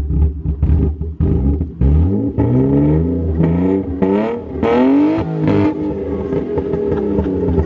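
BMW E36's swapped-in M50B20 straight-six heard from behind at the exhaust. It runs at idle, then is revved several times in quick succession from about two seconds in, each blip climbing higher in pitch, before dropping back to idle.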